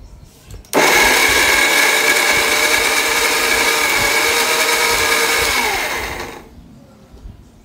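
Electric mixer grinder running with its small steel chutney jar, grinding chopped tomatoes, chillies and garlic into chutney: the motor starts suddenly about a second in, runs steadily with a high whine, then stops and winds down about six seconds in.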